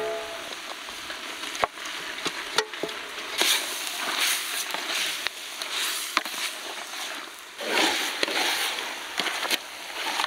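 Ground onion, ginger-garlic paste and turmeric sizzling in hot cooking oil while being stirred. The sizzle swells and fades, and the spoon knocks sharply against the pan every second or two.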